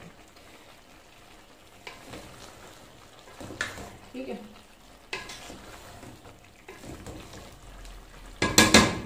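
Wooden spoon stirring chicken and sem beans in an aluminium pot, with scattered scrapes against the pot over a low sizzle from the cooking. A quick run of loud knocks comes near the end.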